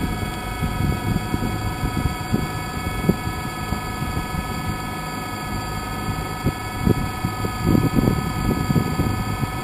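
DJI Phantom quadcopter's motors and propellers spinning at idle on the ground, a steady hum of several high tones, with gusts of wind rumbling on the microphone.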